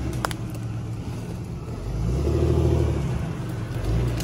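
Lifted Jeep Cherokee's engine under load as it crawls up a rock ledge, the revs swelling about two seconds in and then easing back off.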